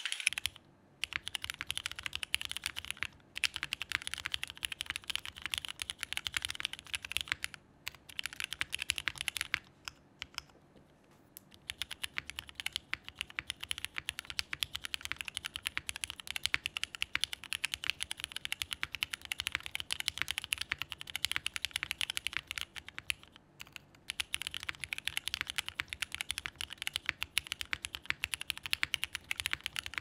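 Mechanical keyboard typing: a Dots87 with Cherry MX2A Black linear switches on a polycarbonate plate with case foam and GMK Oblivion keycaps, typed in a steady stream of keystrokes. There are brief pauses about a second in, around ten seconds in and near twenty-four seconds.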